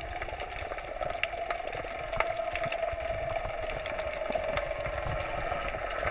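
Muffled underwater sound through a GoPro housing: a steady hum with scattered faint clicks.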